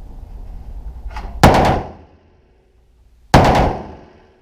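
Two short bursts of full-automatic rifle fire, about two seconds apart, each a quick cluster of shots followed by echoing decay.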